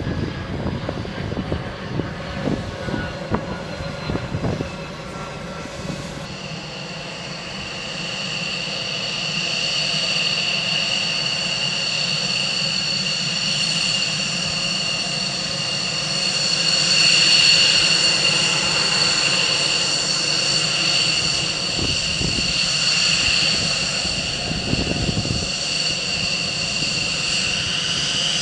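Fighter jet engines: first a low rumble with gusty buffeting for about five seconds, then the steady high-pitched whine of jet engines running at the ramp, swelling a little around the middle.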